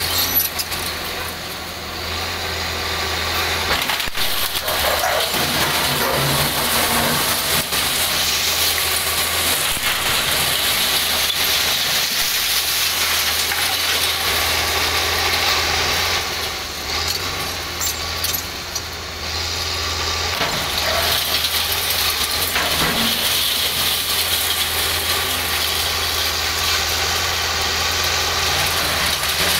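Diesel engines of CAT 323 D2L and CAT 320 CL hydraulic excavators running steadily under load while their buckets tear down a concrete building. Concrete and rubble crumble and fall, with scattered knocks.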